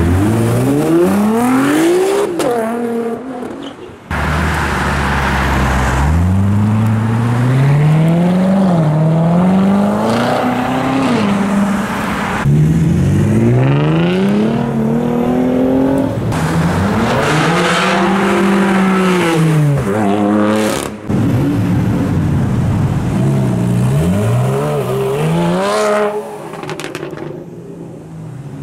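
Sports cars accelerating hard one after another, among them a Nissan GT-R's twin-turbo V6 and a Lamborghini Gallardo's V10: each engine revs up in rising pitch, drops back at the upshifts, and swells and fades as the car goes by. The sound changes abruptly several times from one car to the next.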